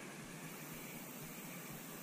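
Faint steady background hiss with no distinct sounds in it.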